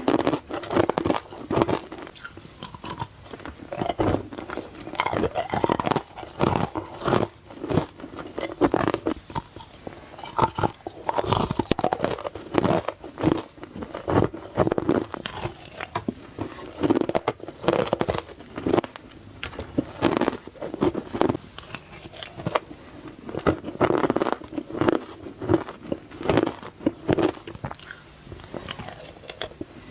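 Soft ice crunching as it is bitten, close to the microphone, bite after bite with crackling breaks, roughly one every second.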